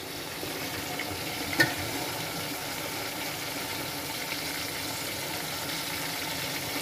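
Chopped tomatoes frying in hot oil with golden-brown onions and whole spices in an aluminium pot: a steady sizzle. One sharp clink sounds about a second and a half in.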